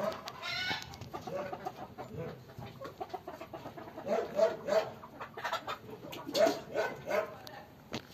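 Hens clucking, short clucks in runs of two or three that come back several times.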